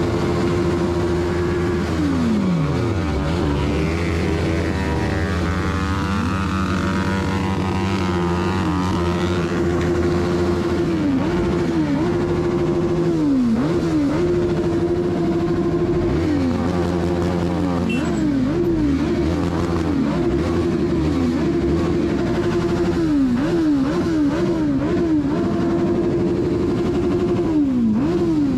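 Motorcycle engine running at a steady high pitch, its revs repeatedly dipping briefly and snapping straight back up, several times in quick succession near the end.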